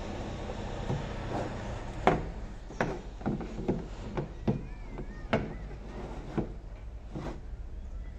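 Jam & Honey Elephant Tusker hollow plastic rocking ride-on knocking on the floor as a toddler rocks on it: about ten irregular knocks, roughly one every half-second to second, over a steady low hum.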